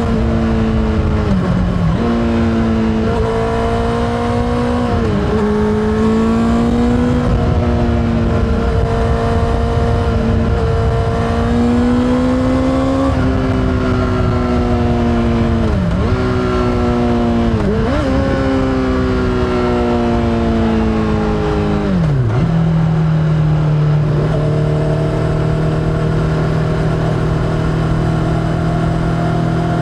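Honda CBR600RR inline-four motorcycle engine through an Akrapovič exhaust, ridden on the road. Its pitch climbs and drops sharply again and again through a run of quick gear changes. After about twenty-two seconds it settles to a lower, steady note that slowly rises toward the end.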